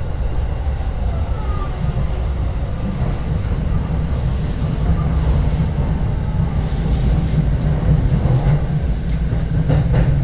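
Steady low rumble of a Saikyō Line commuter train heard from inside the carriage as it runs into a station, getting slightly louder in the second half.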